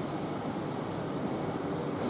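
Electric commuter train moving through the station, a steady low rumble.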